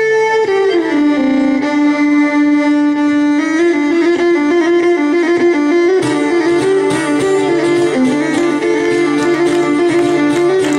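Live Greek island folk band of clarinet, violin, lute and percussion. A slow melody of long held notes opens, and about six seconds in the full band comes in with percussion at a steady dance beat.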